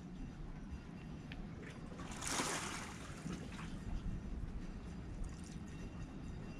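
Seawater sloshing among concrete breakwater blocks: a steady low rumble, with one louder rushing splash about two seconds in that lasts under a second.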